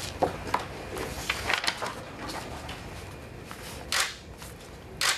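Paper rustling as the pages of a document are turned, then a pen signing on paper, with two louder scratchy strokes near the end.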